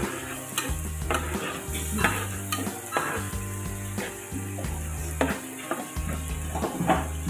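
Metal spatula scraping and knocking against a nonstick wok as a thick sauce is stirred and sizzles, with irregular sharp strokes. Soft background music with low notes runs underneath.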